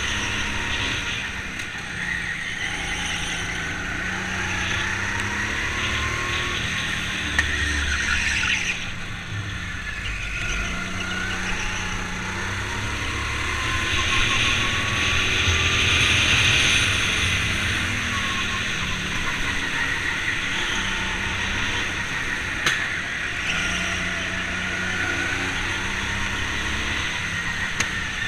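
Kart engine heard from the onboard camera, its revs rising and falling repeatedly through the corners. A hiss swells about halfway through, then fades.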